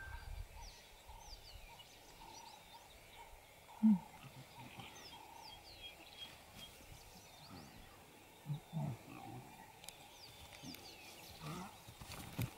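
Lion cubs making short, low grunts as they wrestle, about four in all: the loudest about four seconds in, a quick pair near nine seconds and another near the end. Faint bird chirps in the background.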